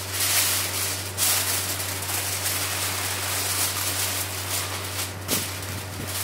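Aluminium foil crinkling and rustling as it is wrapped and pressed around a cooking pot to seal it for steam cooking, over a steady low hum.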